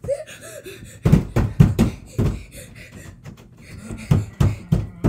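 Knocking or banging on a door: two runs of quick, heavy knocks, about five strikes each, the first about a second in and the second near the end.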